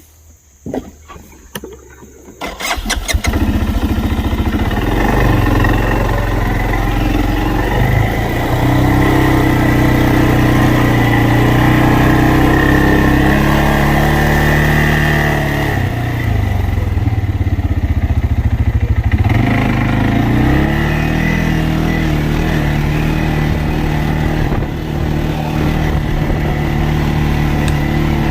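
An engine starting about two and a half seconds in after a few clicks, then running with its pitch rising and falling, dropping lower for a few seconds past the middle.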